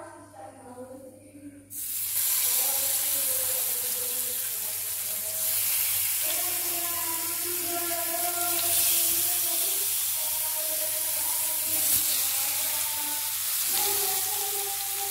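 Masala-coated fish shallow-frying in hot oil in a pan: a loud, steady sizzle that starts about two seconds in, with faint music underneath.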